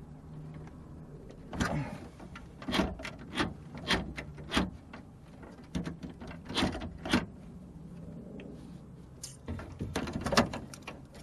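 Irregular clicks and knocks of metal parts and tools being handled inside a car door while a universal door lock actuator motor is mounted.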